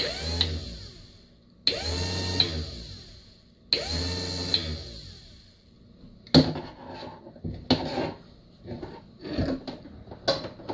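Mercury power-trim electric motor and hydraulic pump running in three short bursts, each switched on with a sharp click and whining up to speed as it drives the trim 'down'; the solenoid and motor are working. After them come several sharp knocks and clacks.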